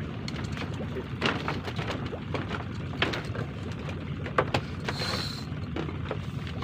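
Scattered light clicks and knocks of a spinning rod and reel being handled, over a steady low rumble, with a brief hiss about five seconds in.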